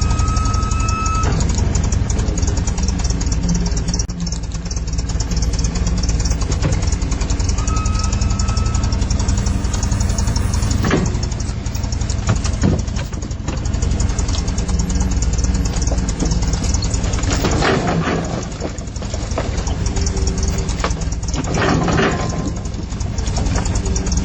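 Big forklift's engine running steadily with a deep rumble and a rattling knock, with two brief high squeals, one at the start and one about eight seconds in.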